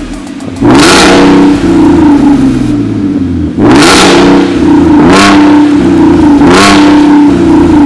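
Porsche 958.2 Cayenne S E-Hybrid's supercharged V6 running on a catless downpipe and valved Fi Exhaust catback, blipped four times from idle. Each rev rises sharply and falls back to a steady idle, at about one, three and a half, five and six and a half seconds in.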